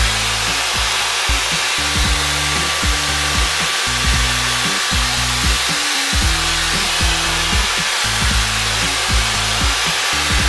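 Shark hair dryer blowing steadily, a loud even rush of air. Background music with a low bass line that changes note every half second or so plays under it.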